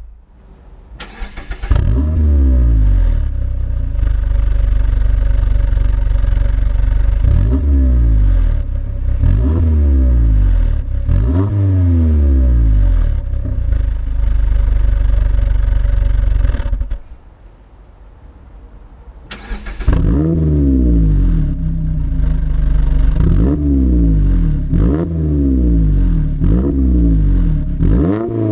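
Mazda MX-5 ND four-cylinder engine through an Ulter-Sport centre-exit sports exhaust with an electric bypass valve, heard at the tailpipes. The warm engine starts about a second in with the valve closed and is blipped several times. It cuts out around 17 seconds, starts again a couple of seconds later with the valve open, and is blipped repeatedly, about every second and a half.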